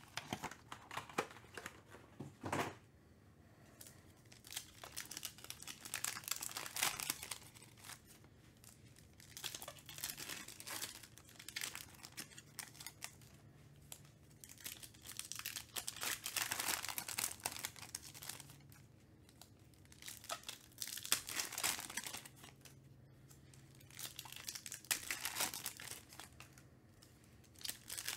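Foil wrappers of trading-card packs crinkling and tearing as they are handled and opened by hand, in bursts every few seconds, with a single knock about two and a half seconds in.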